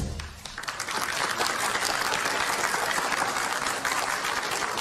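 The band's last note dies away, and a crowd applauds, many hands clapping steadily from about half a second in.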